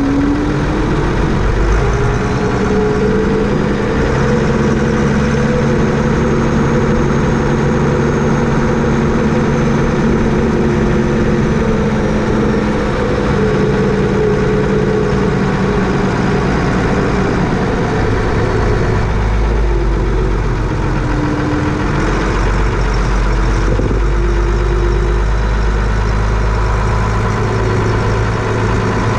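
A vehicle engine running continuously, its pitch rising a few seconds in and dipping again about twenty seconds in as engine speed changes.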